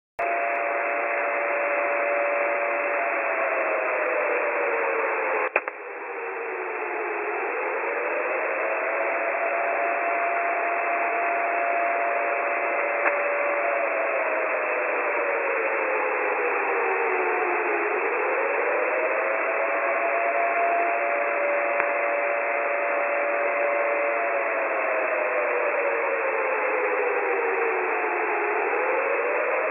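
UVB-76 shortwave station sounding a siren-like wail, heard through a radio receiver over steady static. A paired tone sinks slowly for several seconds, then swoops quickly back up, repeating about every ten seconds. A sharp click comes about five seconds in.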